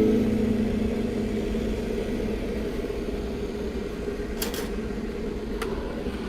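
Electric kettle heating water: a steady rumbling hiss, with a few sharp clicks near the end.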